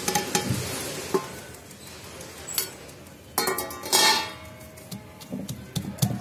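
Bitter gourd seeds scraped and tipped off a steel plate into a terracotta mortar, with a few light clicks. About three and a half seconds in, the steel plate is set down on the brick floor with a ringing metallic clang that dies away within about a second.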